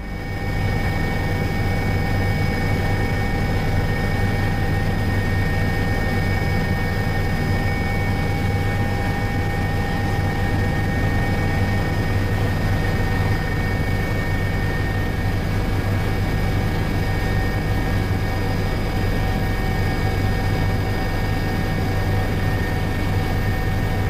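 Steady aircraft engine drone heard from inside the cabin, a constant rushing noise with several unchanging tones. It starts about half a second in.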